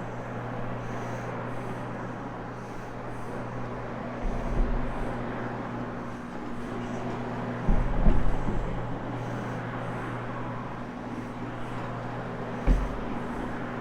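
Carpet-cleaning floor machine running steadily, its motor humming as the pad scrubs the carpet, with three low thumps about four, eight and twelve and a half seconds in, the one around eight seconds the loudest.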